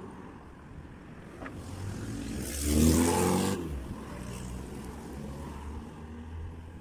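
A hatchback car drives past close by, its engine and tyre noise swelling to a peak about three seconds in and then fading, over the steady hum of other street traffic.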